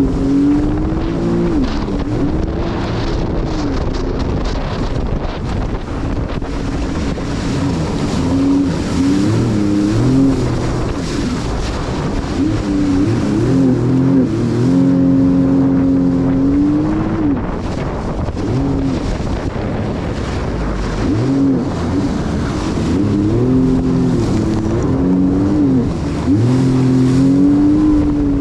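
Jet ski engine revving up and falling back many times as the throttle is worked, held steady at speed for a few seconds now and then, over a constant rushing noise.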